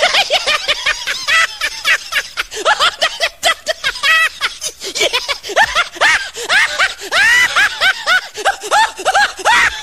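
A person laughing hard and high-pitched, in rapid bursts of short giggles and snickers.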